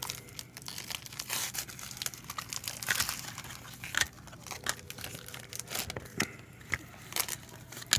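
Trading card packs being handled: wrappers crinkling and cards flicking against each other as they are shuffled through, a string of short scattered rustles and clicks.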